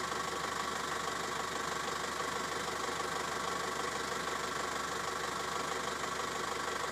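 Vehicle engine idling, a steady hum that does not change.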